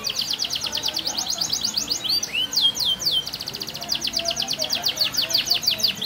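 Domestic canary singing: fast trills of high, evenly repeated notes, about nine a second. A little after two seconds the trill breaks into a few slower down-slurred notes, then the rapid trilling resumes.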